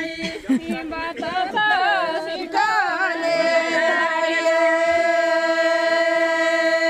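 Traditional Pahadi village folk song sung by a voice without instruments: a wavering, ornamented melody, then from about two and a half seconds in one long held note.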